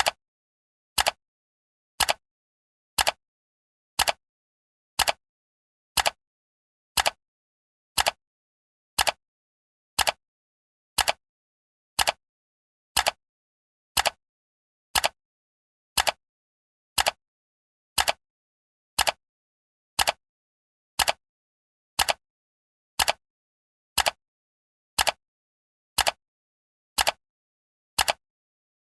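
Countdown timer ticking like a clock: one short tick each second, evenly spaced, with silence between.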